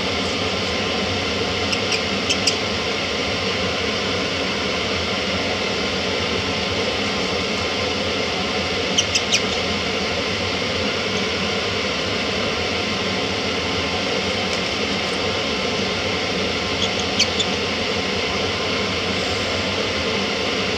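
Small benchtop metal lathe running steadily, with short, light metallic clinks of brass cartridge cases being handled in three small clusters.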